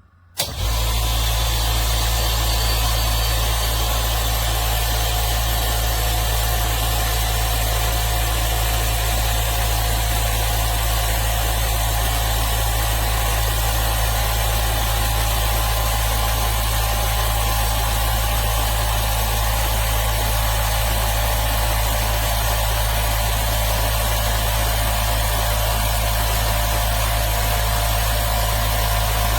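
Limodot oil-free electric air compressor running steadily: a constant motor-and-pump hum with a strong low drone and a few steady higher tones, starting abruptly about half a second in.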